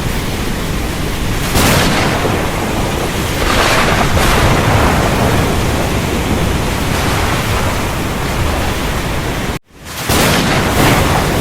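Thunderstorm: heavy rain hissing steadily under a low rumble of thunder, swelling twice in the first few seconds. Near the end the sound cuts out for a split second and comes back, an edit splice in the recording.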